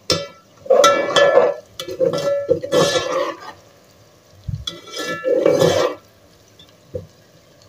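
A spatula stirring frying onions in an aluminium pot, scraping and knocking against the metal so that the pot rings, in four bouts over the first six seconds with one small knock after them.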